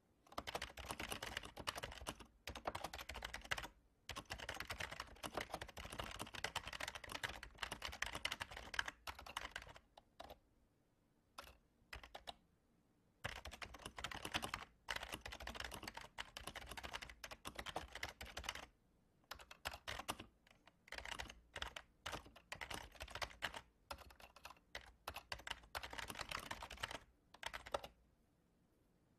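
Fast typing on a computer keyboard, with dense runs of keystrokes broken by short pauses.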